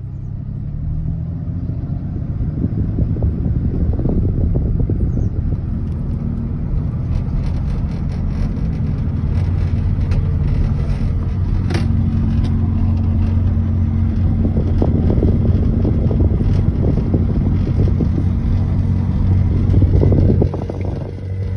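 A 2008 Chevrolet Silverado 4WD V6 automatic on the move, with a low rumbling drone from a harmonic vibration that sounds like driving over washboards and gets louder the faster it goes. The drone builds over the first few seconds and then holds steady, with a low hum coming in about halfway through. The owner has checked the wheel bearings and guesses the fault is in the transmission or the transfer case.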